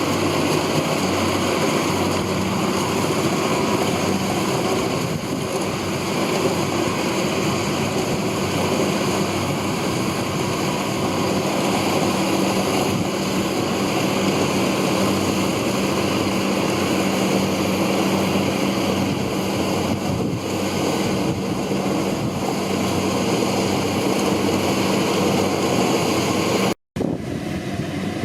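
Kubota DC-70 rice combine harvester running steadily, a constant diesel-engine drone with the rush of its machinery. The sound drops out for an instant near the end and comes back slightly thinner.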